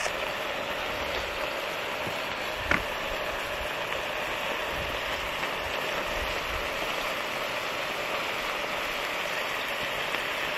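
Plant-based burgers sizzling steadily in hot oil in a pan, with one light tap about two and a half seconds in.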